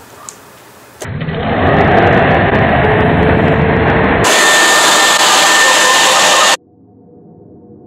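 Electric leaf blower switched on about a second in and running steadily, blowing air down through a cardboard deck to inflate a garbage-bag hovercraft skirt. The blower cuts off suddenly near the end.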